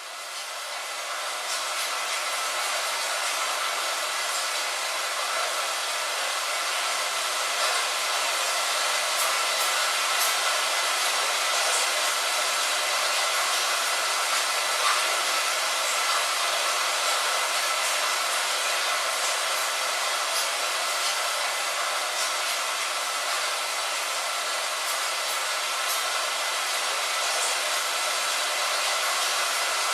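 Light rain falling steadily on a window: an even hiss of rain with scattered faint drop ticks, fading in over the first couple of seconds.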